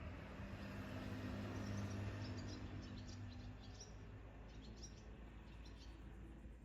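Barn swallows twittering in rapid, high chirps, faint, over a low steady hum that swells about two seconds in.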